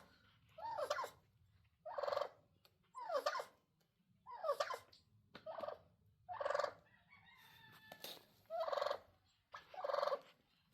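Turkeys calling: about eight short, pitched calls come roughly once a second, with a brief pause around seven to eight seconds in.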